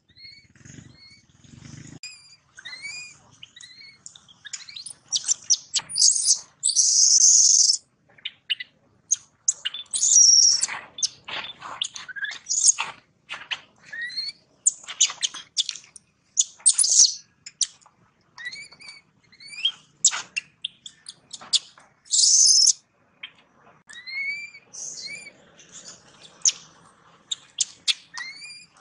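Baby macaque crying: a rapid run of short, high-pitched rising squeaks broken by several louder, longer screams. These are the distress calls of a trapped infant.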